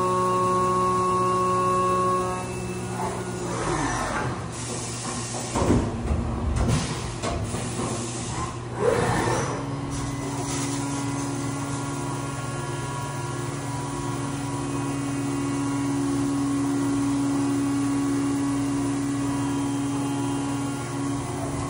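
Haas CNC mill spindle running with a steady whine while coolant sprays. About three seconds in the whine sweeps down and back up through several seconds of knocks and whooshes between cuts. From about ten seconds it settles into a steady, lower whine as it cuts again.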